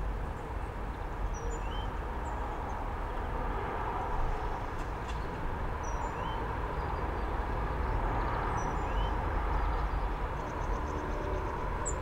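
Steady low rumble of distant traffic. Faint, short, high bird chirps and brief rising call notes come every few seconds over it.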